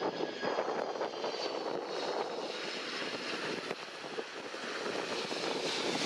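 Twin turbofan engines of a Boeing 767-300ER airliner on final approach, running steadily as it passes close, with a faint high whine over the first half.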